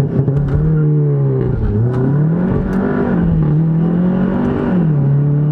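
Turbocharged 2.0-litre four-cylinder of a stage-2 tuned VW Golf GTI Mk7 pulling hard from a launch-control start. The engine note climbs and drops back about three times as it accelerates.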